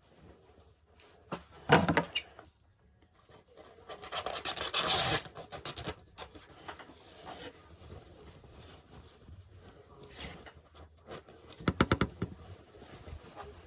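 Irregular rubbing and scraping handling noise, with a sharp click about two seconds in, a longer scraping stretch around the middle, and a quick run of clicks near the end.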